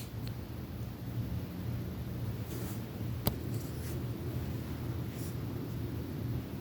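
Lego bricks being handled, with one sharp plastic click about three seconds in, over a steady low background rumble.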